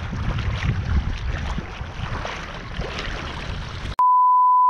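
Wind rumbling on the microphone over lapping shallow seawater. About four seconds in, it cuts off abruptly to a loud, steady high beep tone.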